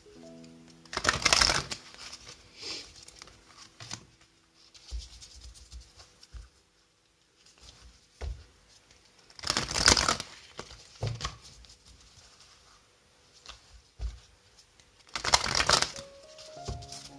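A deck of oracle cards being shuffled by hand: three loud bursts of shuffling, about a second in, about ten seconds in and near the end, with softer card-handling rustles and clicks between them. A few brief musical notes sound at the start and again near the end.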